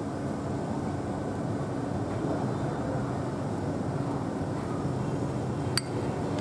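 A steady low background rumble, with one sharp clink of a metal spoon against a ceramic bowl near the end as soup is ladled in.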